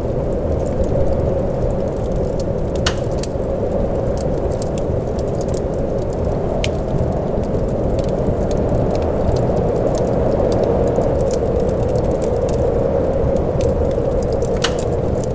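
Steady rain ambience: an even, low rush with scattered sharp ticks and crackles.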